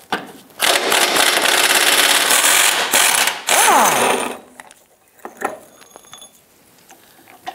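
Impact wrench hammering an 18 mm front subframe bolt loose for about two and a half seconds. A short second burst follows and winds down in pitch as the trigger is released.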